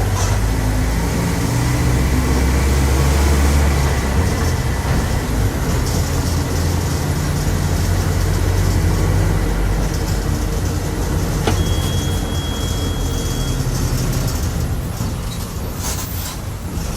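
Volkswagen 17.230 OD bus running on the road, with a steady low drone from the engine and drivetrain that is loudest in the first few seconds, and a differential droning loudly. A click and a short high beep of about two seconds come just past the middle.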